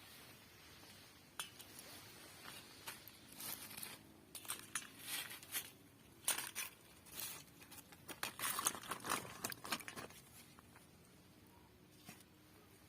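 Irregular small clicks, crinkles and scrapes of hands working with food and kitchen utensils, busiest in the middle stretch and sparse at the start and end.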